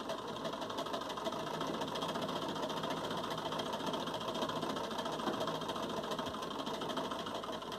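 Old Vigorelli sewing machine running steadily, stitching a long seam. It is an old machine whose owner says it is noisy.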